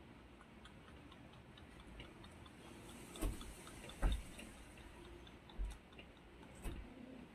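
Ginger kitten suckling at a cat's teat, making a steady run of soft wet clicks and smacks. Four louder thumps come in the second half.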